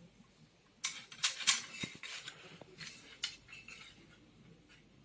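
Small metal hardware clinking and rattling as it is handled. A cluster of sharp clinks comes about a second in, and a few single clicks follow over the next two seconds.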